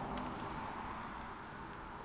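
Plastic vacuum-bagging film crinkling, with a few light clicks near the start, as hands press it around a hose connector, over a steady background hiss that slowly fades.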